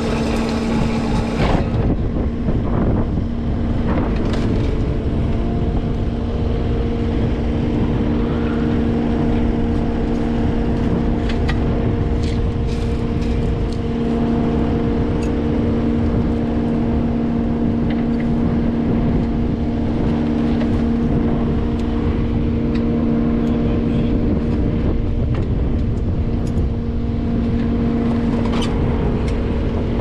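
Caterpillar 289D compact track loader's diesel engine running steadily at a constant speed, with a few short clicks and knocks on top.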